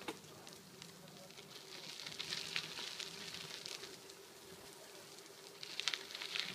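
Bicycle tyres rolling over grit and debris on a woodland trail, a steady crackle with bursts of sharper ticks about two seconds in and again near the end. A faint steady hum runs underneath.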